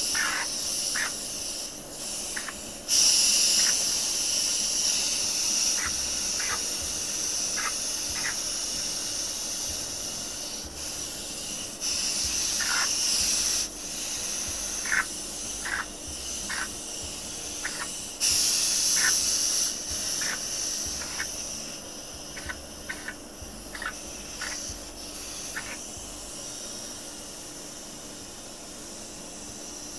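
Electrostatic powder coating gun hissing in bursts of compressed air, the longest about three seconds in and another about eighteen seconds in, over the steady hum of a spray-booth extractor fan. Short light clicks fall between the bursts.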